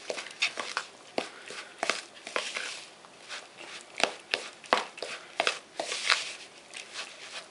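Metal spoon stirring cottage-cheese dough in a plastic bowl: irregular scrapes and clicks of the spoon against the bowl, a few a second.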